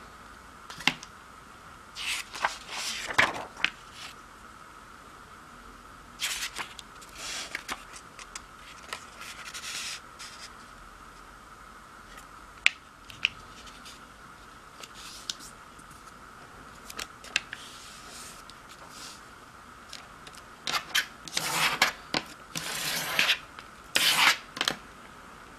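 Square of origami paper rustling and crinkling in irregular bursts as it is handled and folded into a triangle, with a few sharp taps. Near the end it is loudest, scraping as the fold is pressed flat with the edge of a plastic ruler.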